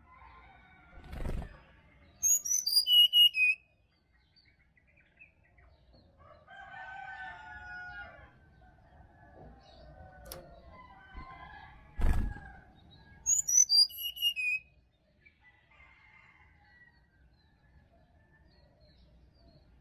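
Brown-chested jungle flycatcher singing twice, each song a quick run of five or six clear, high whistled notes stepping down in pitch. Softer, lower calls fill the gap between. A low thump comes shortly before each song.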